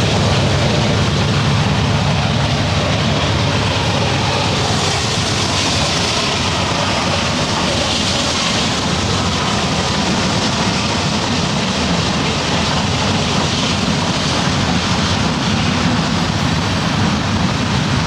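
Train rolling along the tracks: a steady low rumble with a hiss of wheel-on-rail noise.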